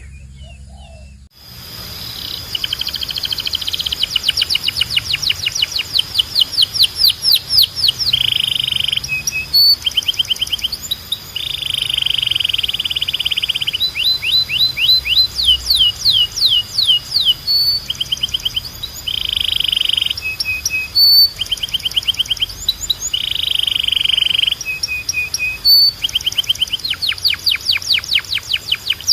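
Domestic Belgian canary singing a long, unbroken song: runs of rapid repeated notes, many of them quick downward sweeps, alternating with dense buzzing rolls. The song starts about a second in after a brief silence.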